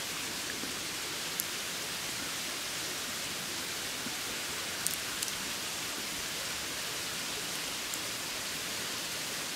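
Steady, even hiss with a few faint, short clicks, two of them close together near the middle.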